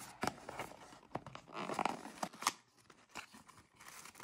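Small cardboard advent-calendar box being opened by hand: clicks and taps of the card flaps, with a short scrape of cardboard sliding against cardboard about a second and a half in.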